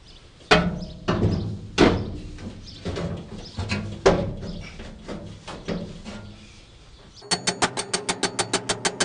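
Sheet-metal panel work on a car's torque box: several sharp metal knocks and bangs at uneven intervals as the upper piece is fitted. Near the end a fast, even rhythmic clatter starts, about eight strikes a second.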